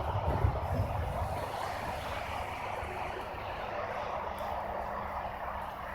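Union Pacific manifest freight train rolling past: a steady rush and rumble of wheels on rail, heaviest in the first second.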